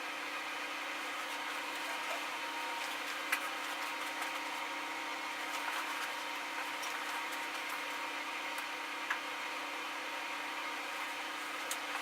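Steady indoor background hum with a faint steady tone, broken by a few soft clicks.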